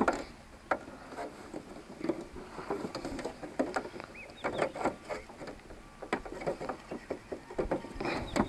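Hard plastic parts of a hand-push seed planter clicking and knocking as they are handled and pushed into a slot in its clear plastic seed drum, in irregular clusters of clicks.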